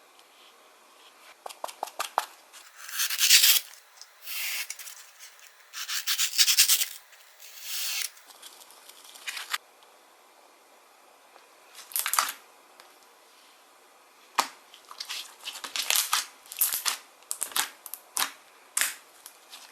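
Handmade slime being squeezed, stretched and pressed by hand, giving irregular sticky crackles, pops and short tearing sounds in bursts, with the loudest stretches about three and six seconds in.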